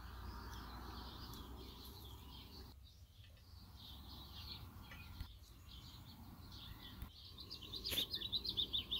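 Faint bird chirps in the background, with a quick run of high chirps near the end.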